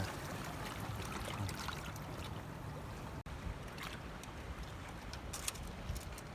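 Seawater washing and trickling among shoreline rocks, a steady wash with a few light clicks and knocks.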